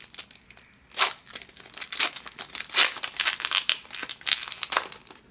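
A foil Pokémon booster pack wrapper crinkling and tearing as it is opened by hand, in a series of uneven rustles and crackles.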